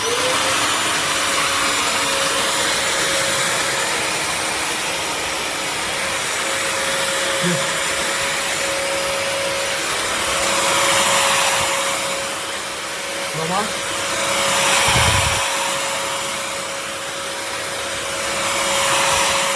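Bissell CrossWave HydroSteam Pet wet-dry floor cleaner switching on and running: a steady rush of suction with a motor whine that settles in pitch just after it starts. The rush swells and eases a few times as the head scrubs back and forth over a stubborn dog stain.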